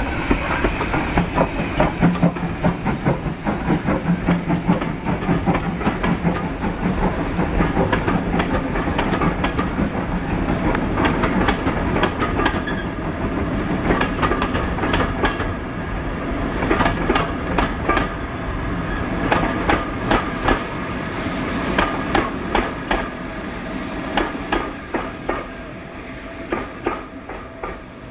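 GWR 2857, a 2-8-0 steam locomotive, passing with its train of coaches, followed by the carriages rolling by with their wheels clicking over the rail joints in rhythmic groups. The sound fades near the end as the train draws away.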